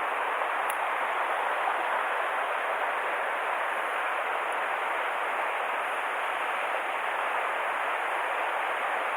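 Mountain stream water rushing steadily, an even hiss with no change.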